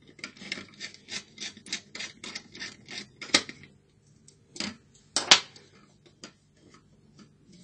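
Hands handling a laptop motherboard on a wooden desk: a quick run of light clicks and taps, about six a second, then a few louder knocks, the loudest a little past halfway, followed by a few faint ticks.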